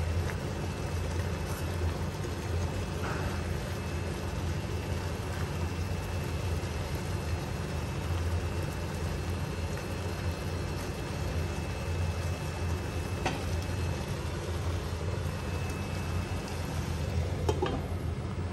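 Giant river prawns sizzling in their juices in a frying pan over a steady low hum, with a few light clicks of a spatula against the pan. Near the end a glass lid is set on the pan with a clink.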